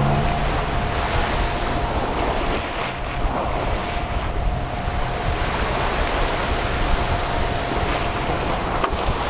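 Wind and sea rushing past a sailboat under way through choppy water, buffeting the microphone, with the boat's engine humming steadily underneath while motor-sailing.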